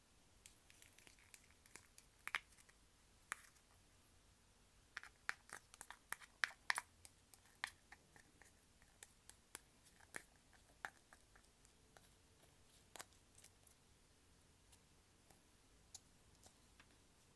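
Layered clear slime being pressed and stretched by hand, giving faint, scattered wet clicks and small pops, thickest about five to seven seconds in.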